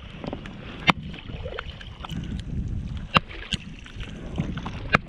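Kayak paddle moving in shallow floodwater, water dripping and splashing off the blade, with four sharp knocks, two of them close together a little past the middle.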